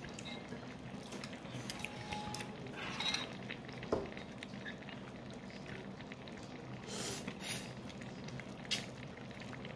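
Quiet eating sounds: chopsticks and a spoon clicking against a bowl, with short slurps of hot pot noodles in the second half.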